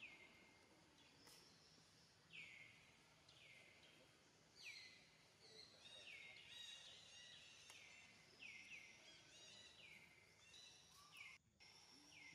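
Faint, repeated short chirping calls, each falling quickly in pitch, coming every half second to a second over a low outdoor background.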